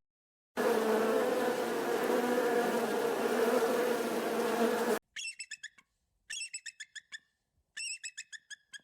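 A hornet buzzing steadily for about four seconds, cutting off abruptly. Then an eagle calling in three short bursts of rapid, high chattering notes.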